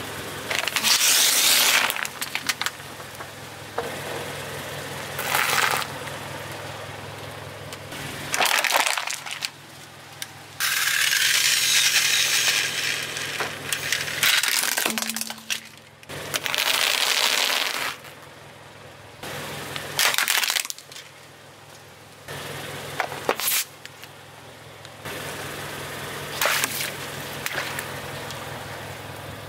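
Car tyres rolling over and crushing a string of objects one after another (a plastic bottle full of water beads, a small plastic toy crane truck, rubber gloves), with crunching, cracking and bursting noises, some short and some lasting a few seconds. Beneath them runs the low steady hum of the car's engine.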